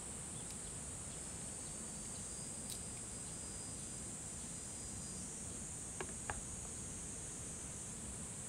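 Steady high-pitched insect chorus of summer crickets or cicadas, with two light clicks of serving utensils against a metal plate about six seconds in.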